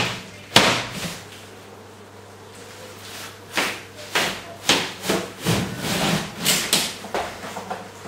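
A wall panel being pried and torn away from the wall: one sharp crack just after the start, then from about halfway a run of knocks, scrapes and splintering.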